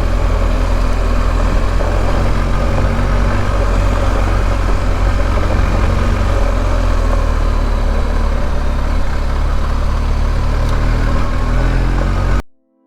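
BMW R1250 GS Adventure's 1254 cc boxer twin running at a steady road speed under way, with wind and tyre noise. The sound cuts off abruptly near the end.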